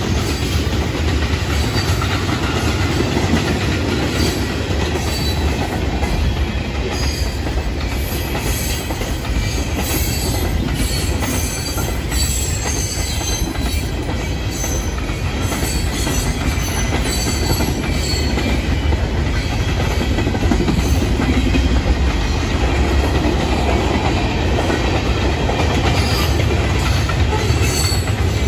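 Freight cars of a Florida East Coast Railway train rolling past at trackside: a loud, steady rumble of steel wheels on rail, with brief high wheel squeals here and there.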